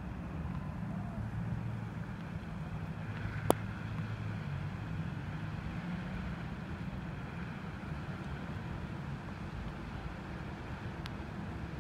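Steady rumble of city traffic on wet streets, with the engine and tyre noise of passing vehicles. A single sharp click cuts through about three and a half seconds in.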